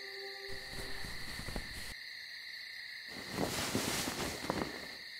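Crickets chirring steadily in a night-time ambience. Two rough, noisy swells rise over it, one about half a second in and a louder one from about three to four and a half seconds.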